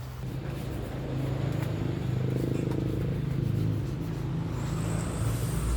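A motor running with a low, steady hum.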